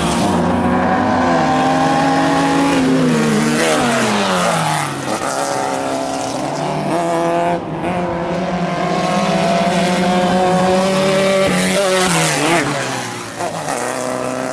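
Off-road racing buggy engines running hard at high revs, the pitch climbing and dropping again and again with throttle and gear changes as the buggies race by.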